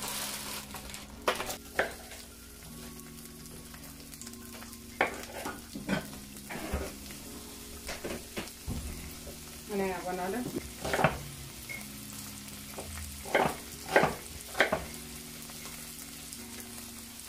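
Frozen bell pepper, scallion and onion sizzling in olive oil in a non-stick frying pan. Several sharp knocks and clatters are heard as pieces are dropped in and stirred.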